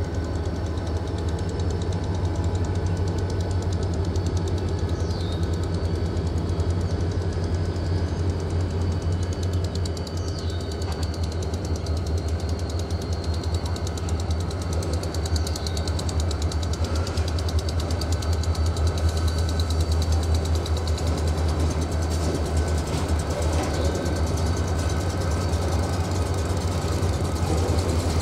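Diesel locomotive engine running steadily with a deep, even drone.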